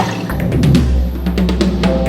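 Drum kit being played: quick clusters of sharp drum strikes over a low, ringing drum tone.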